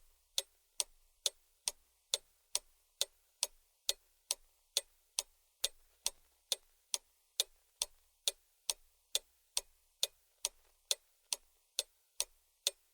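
Clock ticking steadily, a sharp, even tick about two and a half times a second.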